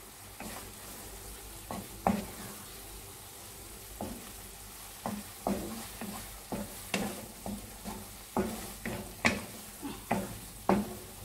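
Wooden spatula stirring thick egg roast masala in a non-stick frying pan, scraping and tapping against the pan, the strokes coming faster, about twice a second, in the second half. Underneath, the masala sizzles steadily as it fries.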